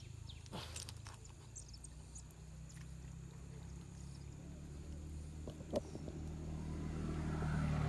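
A steady low motor hum that grows louder toward the end, with a few faint high bird chirps and a couple of sharp clicks.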